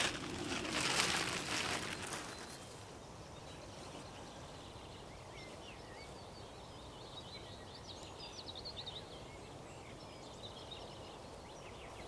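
A brief rustle in the first two seconds, then faint outdoor ambience with small birds chirping and singing in the background.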